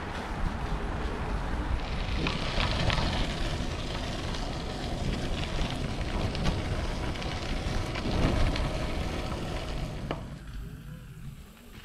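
A Trek Domane AL road bike rolling on gravel: steady tyre crunch with a heavy low rumble of wind buffeting the microphone, and scattered small clicks and rattles from the bike. The noise drops off near the end.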